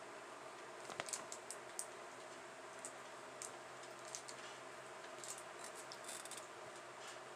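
Faint, irregular clicks and light scratches of fingers handling and pressing gummy candy pieces in a small plastic tray, with a quick run of clicks near the end, over a steady faint hum.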